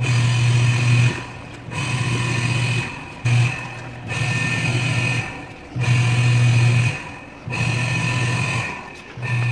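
Whirlpool top-load washing machine's motor humming in repeated bursts of about a second, each followed by a pause of about half a second, the stop-start pattern of the wash agitation.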